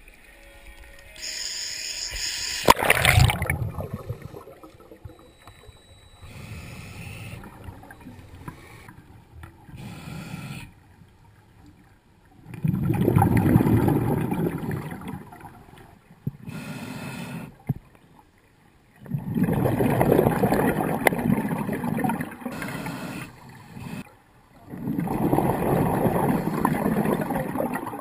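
Scuba diver breathing through a regulator underwater: long rushes of exhaled bubbles every five to six seconds with quieter gaps between. Near the start there is splashing, with a sharp loud burst about three seconds in as the camera goes under.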